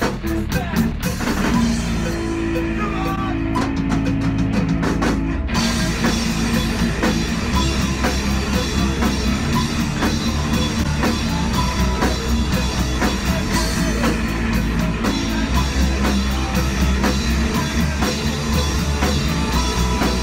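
Nu-metal band playing live: distorted guitars, bass and a pounding drum kit, with the singer's vocals through a handheld microphone. A sparser passage with held low notes gives way about five seconds in to the full band with cymbals crashing again.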